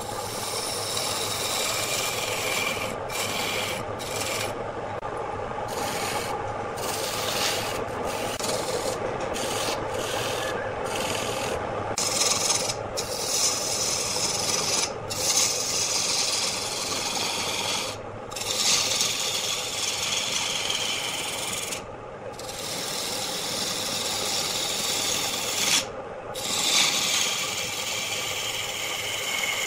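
A hand-held turning tool cutting a spinning wooden workpiece on a wood lathe, giving a continuous rasping scrape as the shavings come off. The scrape breaks off briefly every few seconds where the tool leaves the wood.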